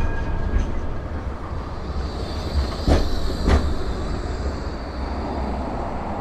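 A Blackpool Flexity 2 tram rolling slowly past at the platform, with a steady low rumble. About three seconds in there are two clunks from its wheels on the track, half a second apart, and a faint high whine runs through the middle.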